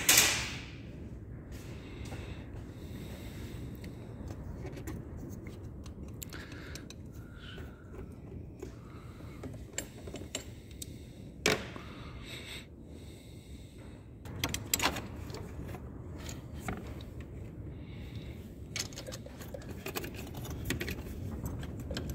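Scattered metallic clicks and clinks of hand tools and parts being handled on a diesel engine under injector removal, over a steady low hum. A sharp clink comes near the start, another around the middle and a cluster about two-thirds in.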